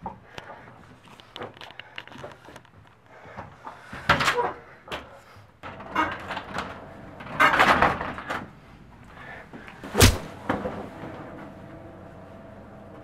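A series of knocks and thuds, the loudest a single sharp bang about ten seconds in.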